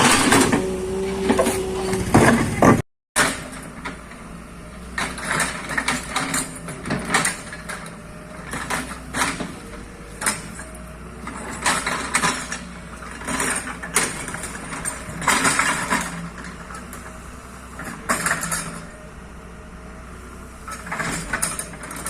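Excavator at work: a steady engine hum under repeated irregular clanks and scrapes.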